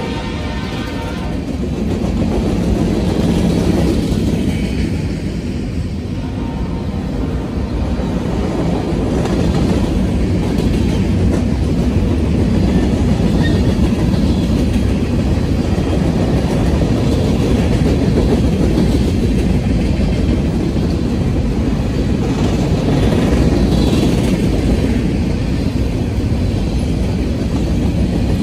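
Freight train of covered hopper cars rolling past close by: a steady, loud rumble and rattle of steel wheels on the rails.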